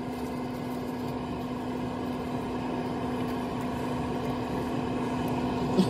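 Pit Boss Pro smoker humming steadily as it runs through its shutdown cycle.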